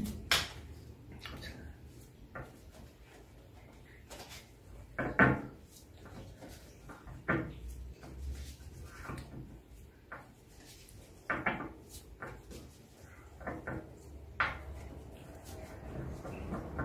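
A deck of cigano oracle cards being shuffled by hand: scattered soft card flicks and taps, with a few louder knocks about five, seven, eleven and fourteen seconds in.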